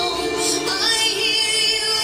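Music with singing: a melodic vocal line over steady backing.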